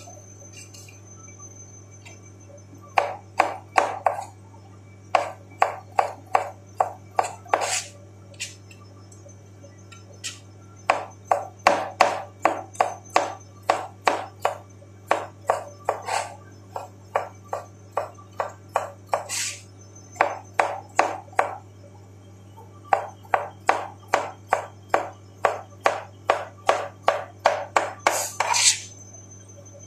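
Kitchen knife chopping cucumber on a cutting board: quick runs of sharp knocks, about three to four a second, broken by short pauses. A steady low hum runs underneath.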